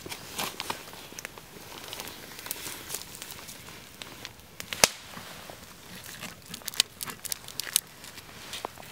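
Handling noises: scattered small clicks, crackles and crinkles as hands work a forked stick, sausage slices and plastic wrap on snow, with one sharp click a little before five seconds in.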